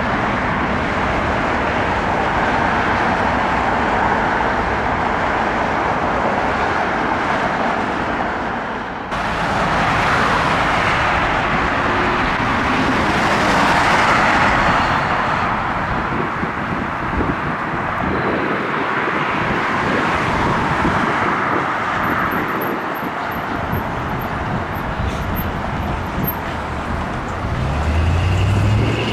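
Steady rushing vehicle noise like passing road traffic, changing abruptly about nine seconds in. Near the end a low engine note comes in and rises in pitch.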